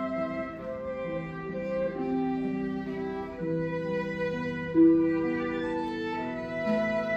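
Background music: a bowed violin melody of long held notes, one note swelling louder about five seconds in.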